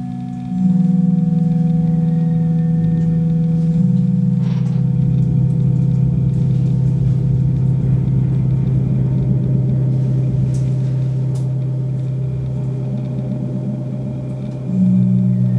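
Low electronic drone: deep sustained tones that step to new pitches a little under a second in, about four seconds in and near the end, with a wavering texture rising above them.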